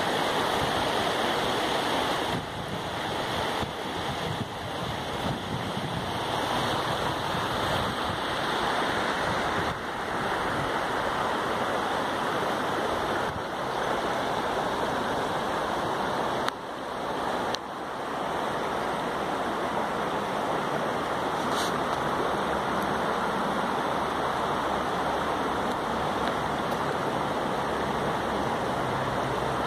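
Steady rush of shallow river water running over stones.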